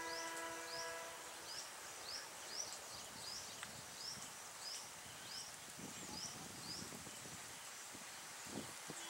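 A distant diesel locomotive horn, a chord of steady tones, stops about a second in. Then a bird repeats a short rising chirp about twice a second over a faint outdoor hiss.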